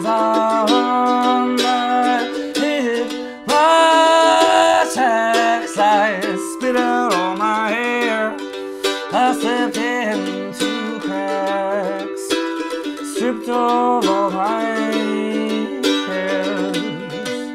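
Mandolin picked and strummed in a steady rhythm, with a man singing along over it.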